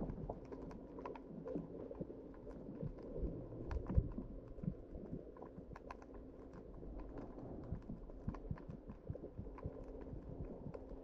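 Underwater sound through an action camera's housing while diving: many irregular sharp clicks and crackles over a muffled low hum, with a dull thump about four seconds in.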